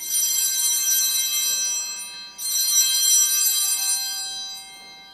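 Altar bells rung at the elevation of the consecrated host: a bright, shimmering ring struck at the start and again about two and a half seconds in, each ringing on and fading out near the end.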